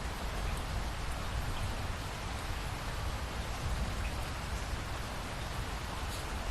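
Steady rain falling, with a few faint ticks of single drops over a steady low rumble.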